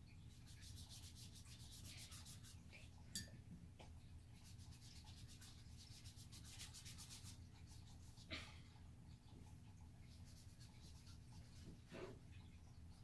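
Faint scrubbing of a wet paintbrush rubbed back and forth on the paper page of a paint-with-water book, in rapid strokes that come in two spells. A sharp tap about three seconds in, with softer knocks later.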